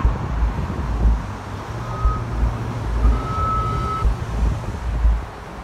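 Road traffic going by, with low gusts of wind buffeting the phone microphone. A faint high steady beep sounds twice, first briefly and then for about a second.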